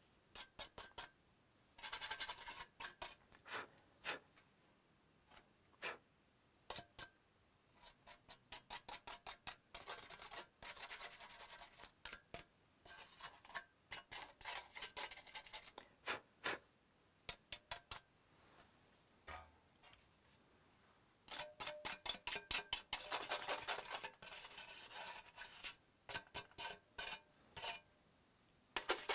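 Quick scrubbing strokes wiping a PS4's top metal plate clean, coming in runs separated by short pauses.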